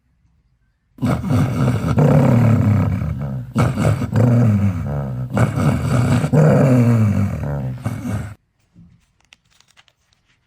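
A deep, growling animal-like roar, heard as three long roars back to back, with the pitch wavering through each one.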